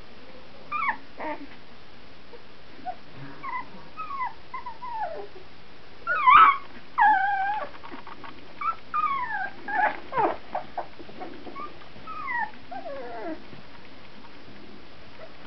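Two-week-old Brittany puppies whimpering: a string of short, high squeals that mostly fall in pitch, loudest and most crowded about six to seven seconds in.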